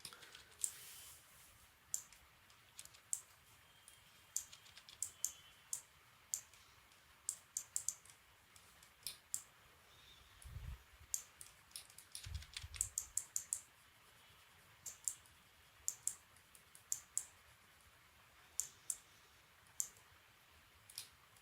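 Faint, irregular clicking of a computer mouse and keyboard, single clicks and quick clusters, as brush strokes and shortcuts are worked in 3D painting software. Two low thumps come about ten and twelve seconds in.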